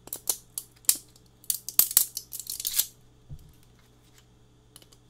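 FDM 3D-printed plastic supports cracking and snapping off the print as needle-nose pliers are pushed in and twisted: a quick run of sharp clicks and crackles over the first three seconds, a pause, then a few more snaps near the end.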